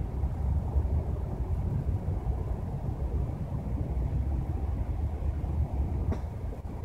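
A steady low outdoor rumble, mostly deep bass with no distinct events, and a faint click near the end.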